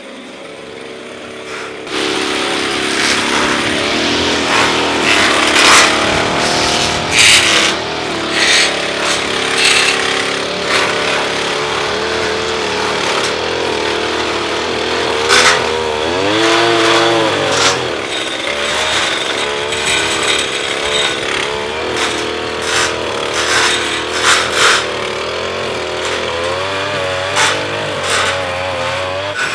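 Petrol string trimmer running hard and cutting grass, its engine pitch rising and falling as the throttle is worked, with frequent sharp cracks. It is quieter for about the first two seconds, then runs loud.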